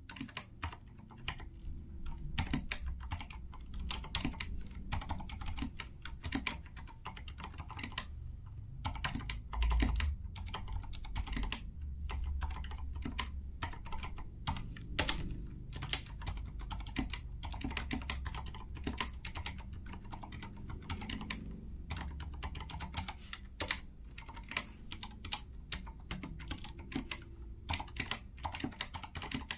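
Continuous fast typing on a Corsair K70 LUX RGB mechanical keyboard with Cherry MX Silent Red switches: a dense, irregular run of keystrokes from linear switches whose internal dampening keeps them quiet.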